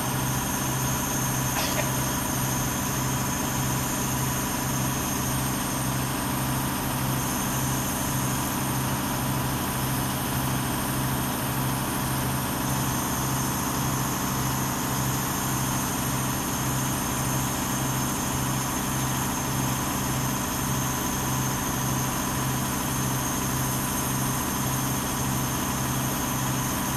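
An engine-driven machine running steadily at idle, its low hum pulsing evenly about twice a second.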